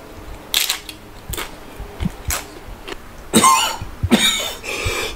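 A man coughing after eating a habanero chile: a few short, sharp sounds, then two harsher coughs about three and a half and four seconds in, as the chile's heat catches his throat.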